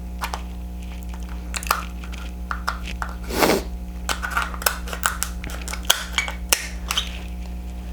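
King crab shell being cracked and pulled apart by hand: a run of sharp, irregular clicks and cracks with wet squishing, over a steady low electrical hum.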